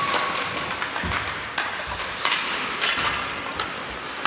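Ice hockey play: skate blades scraping across rink ice, with several sharp knocks of sticks and puck, echoing in an indoor arena.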